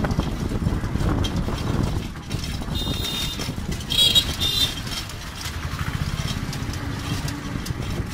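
A small open motor vehicle running along a rough dirt road with a steady, rapid low rumble. Two short high-pitched beeps come about three and four seconds in, and the second is the loudest.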